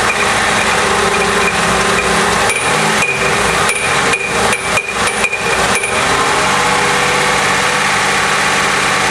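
GM 3.8 V6 engine running and being revved, with a metallic knocking rattle like something pumping or banging inside the engine. The knocks cluster around the rev. The noise comes from a failed harmonic balancer: the rubber bond between its hub and outer ring has broken, so the outer ring knocks about on the crankshaft nose.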